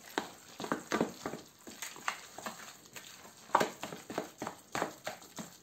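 Metal spoon stirring and mashing raw burbot fish mince in a plastic bowl: irregular squelching strokes, a few a second, with a louder one about three and a half seconds in.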